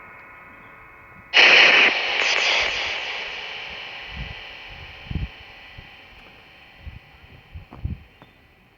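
A radio receiver gives a sudden loud burst of static hiss about a second in, which fades out slowly over several seconds, over a faint steady whine. A few soft low thumps follow.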